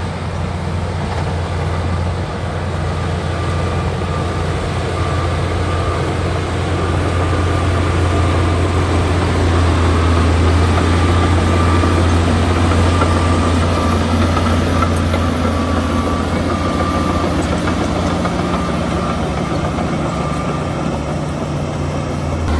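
Heavy earthmoving machine's diesel engine running steadily with a deep drone, swelling a little toward the middle. A faint high whine comes and goes on top.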